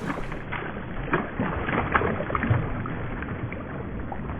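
Water splashing and sloshing in a small creek, with irregular small splashes over the steady sound of running water.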